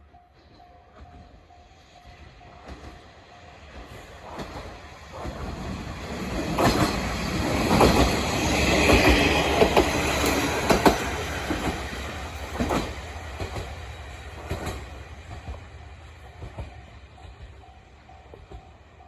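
KiHa 40-series diesel railcar passing: its engine and running noise build up, are loudest about eight to eleven seconds in with wheels knocking over rail joints, then fade away. A level-crossing warning bell rings in a steady pulsing pattern at the start and again near the end.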